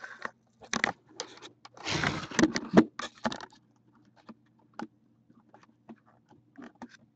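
Handling noise from a camera being picked up and moved: rubbing, scraping and knocks, loudest between about two and three and a half seconds in, then a few light clicks, over a faint steady low hum.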